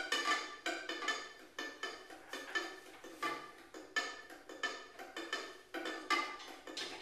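Quiet free-improvised music: a mandolin picked in a stream of short, scattered metallic notes, each dying away quickly.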